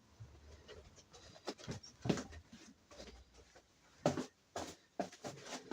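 Scattered faint knocks and clinks of old hammers being handled and picked out of a bucket, irregular and a little busier in the second half.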